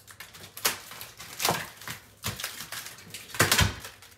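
Cardboard shipping box being unpacked, with its plastic packing straps pulled off and the box handled: irregular sharp clicks, snaps and scrapes, the loudest cluster near the end.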